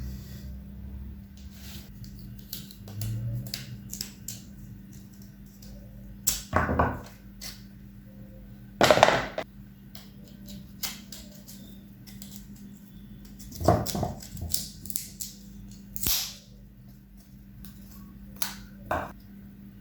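Hard knocks and cracks from a coconut shell being struck and broken open: many light clicks and taps, with a few heavier blows spaced a few seconds apart.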